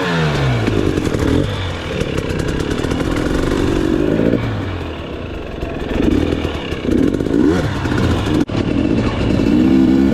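Off-road motorcycle engine revving up and down while climbing a rough hill trail, its pitch rising and falling every second or two.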